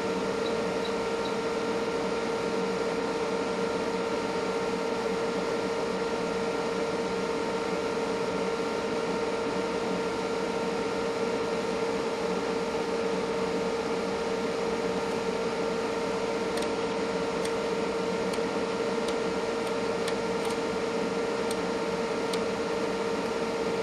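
Steady electrical hum and whir of bench test equipment, a constant mid-pitched tone with a hiss, like an oscilloscope's cooling fan running. A few faint clicks in the second half.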